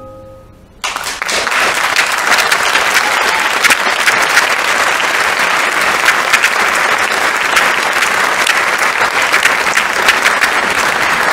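Audience applause breaking in suddenly about a second in, just as the last held note of the opera aria dies away, then going on steadily and loudly.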